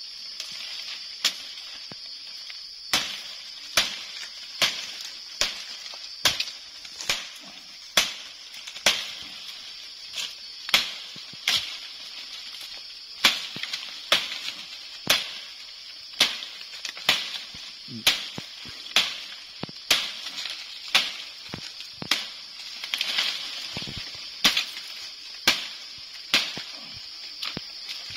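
Sharp knocks or cracks, about one a second, from a rattan cane being hauled down and worked with a machete, over a steady high insect drone.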